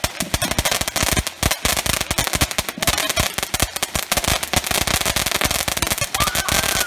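Firework fountain spraying sparks with a dense, continuous run of rapid crackling pops and snaps.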